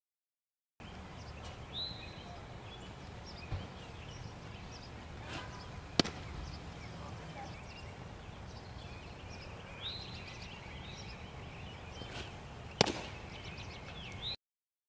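Baseball pitches smacking into a catcher's mitt: two sharp pops about seven seconds apart, over outdoor ambience with birds chirping now and then.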